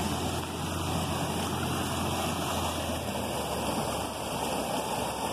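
Shallow river water rushing steadily over and around rocks.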